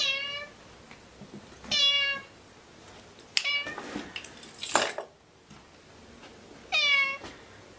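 Ginger tabby house cat meowing four times, short calls that dip slightly in pitch, spaced a second or more apart. A brief, loud noisy rasp falls between the third and fourth meows.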